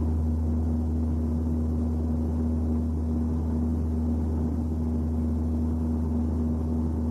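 A steady, low rumbling drone with a constant hum-like tone above it, holding the same pitch and level throughout after fading in just before.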